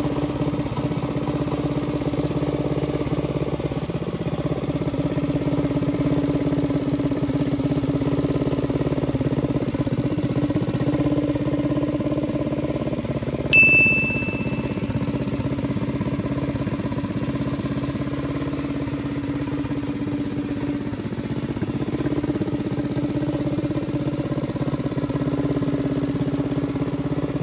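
Predator 212 single-cylinder four-stroke engine on a Nibbi racing carburetor running steadily at idle, smooth and even, a sign that the new carb is well tuned. A short ding sounds about halfway through.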